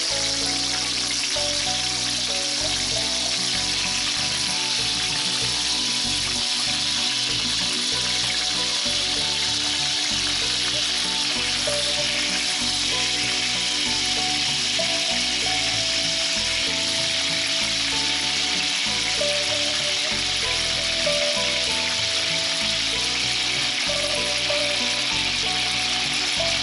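Raw marinated chicken drumsticks and wings frying in hot oil in a frying pan, giving a steady sizzling hiss.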